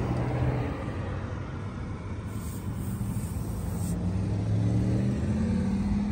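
An engine running with a steady low hum, its pitch rising a little about four seconds in.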